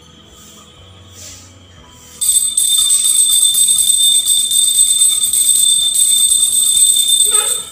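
Temple hand bell rung continuously during the lamp-lighting worship, starting about two seconds in: a steady, shimmering high ringing that keeps going to the end.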